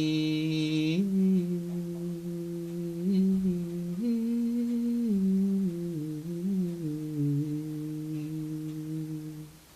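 A man's voice holds a sung note for about a second, then hums a slow, wordless tune with his mouth closed, stepping between a few low notes. It stops just before the end.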